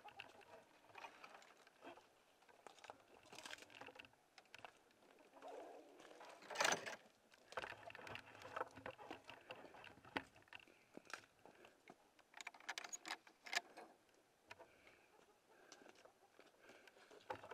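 Quiet scattered rustles, clicks and steps as a gloved hand works the handle and latch of a wooden chicken-coop door and moves around the coop, with one sharp knock about seven seconds in.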